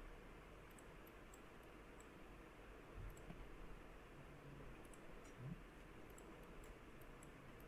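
Near silence: faint room hiss with scattered soft computer mouse clicks, about a dozen spread through.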